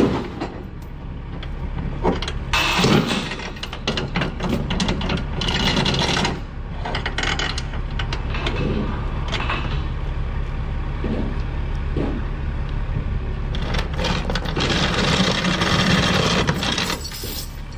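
Steel transport chains rattling and clanking in repeated bursts as they are pulled and thrown over a load on a flatbed trailer, with the longest run of rattling near the end. A steady low rumble runs underneath.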